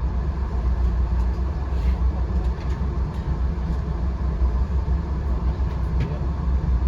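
Steady low rumble of a moving VIA Rail passenger train, heard from inside the coach, with a sharp click near the end.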